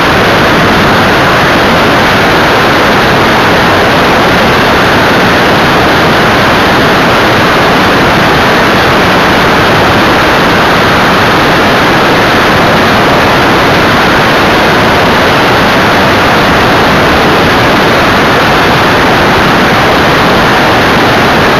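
Steady, loud rush of airflow over a camera mounted on the tailplane of an EV-97 Eurostar ultralight in flight, an even roar with no clear engine note standing out.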